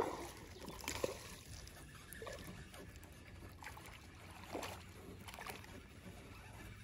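A hooked bass being reeled up beside a small aluminium boat: scattered light knocks on the hull and faint water splashing, sharpest right at the start and again about a second in.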